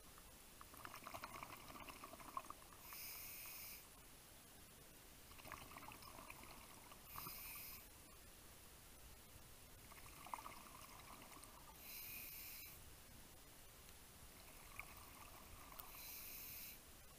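Scuba diver breathing underwater through a regulator: about four breaths, each a crackling rush of exhaled bubbles followed by a short hissing inhale.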